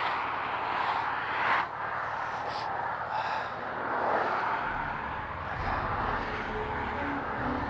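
Highway traffic going by in a steady rush of tyre and wind noise. A low rumble joins a little past halfway.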